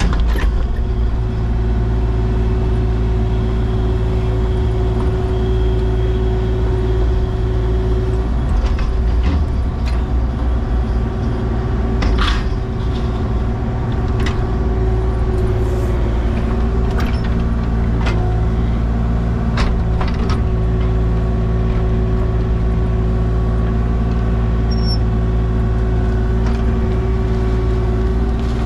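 Diesel excavator engine running steadily under load while the machine works, with occasional sharp metallic knocks.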